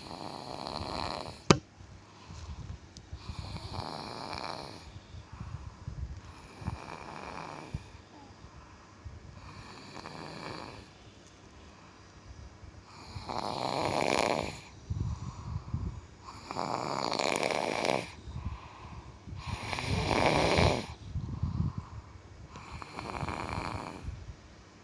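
A sleeping person snoring, a rasping snore on each breath about every three seconds, louder in the second half. There is a single sharp click about a second and a half in.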